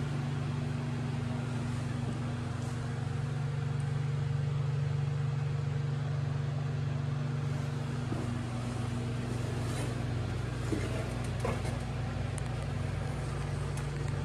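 A steady low machine hum holding several constant tones, with a few light clicks and taps near the end.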